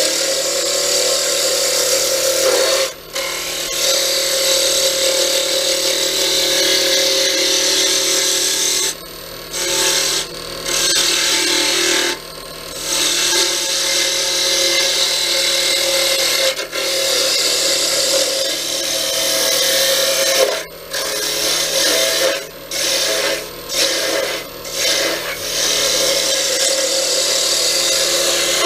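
Wood lathe running with a steady motor hum while a tool works a spinning cherry pen blank, a continuous rasping hiss that breaks off briefly about ten times, most often in the last third.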